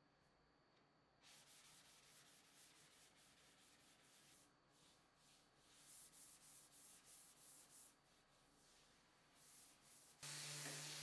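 Faint hand-sanding of a primed tabletop with a firm sanding sponge, rubbed back and forth with the grain. The strokes come about two a second in the middle, smoothing the primer before the paint goes on. About ten seconds in, a steady electric hum cuts in abruptly.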